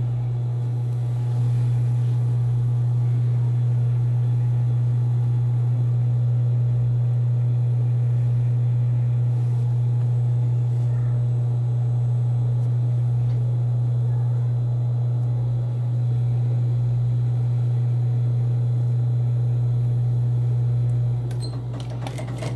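Industrial sewing machine's motor idling with a steady low hum while the needle stands still. Near the end the sound changes with a few clicks as the machine is set to stitch.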